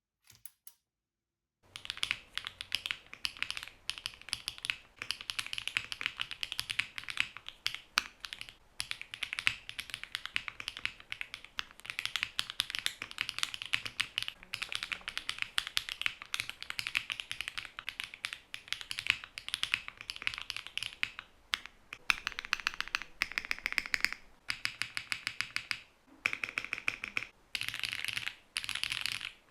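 Fast, continuous typing on a mechanical keyboard with stock, factory-lubed HMX Gravel switches in a polycarbonate plate, GMK keycaps and no foam: a dense run of clacky keystrokes. It starts about two seconds in, with a few brief pauses.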